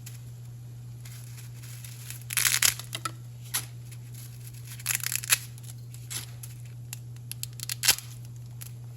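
Dry thin spaghetti being snapped in half by hand: clusters of sharp cracks and crackles, the loudest near the end, over a steady low hum.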